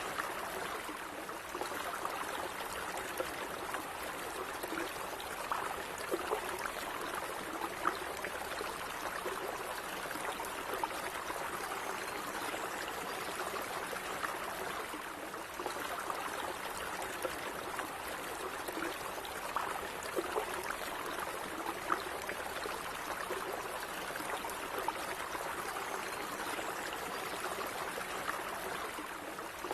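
Calm running water flowing steadily, with small splashes and gurgles scattered through the steady rush.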